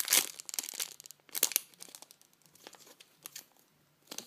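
Clear plastic packaging bags crinkling as small squishy toys are squeezed through them: a loud burst of crackling at the start, more handfuls of crinkles over the next few seconds, then it goes nearly still shortly before the end.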